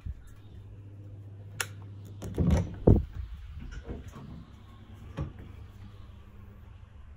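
Doors and a cabinet door being handled: a sharp click about a second and a half in, two heavy thuds around three seconds in, and softer knocks later, over a steady low hum.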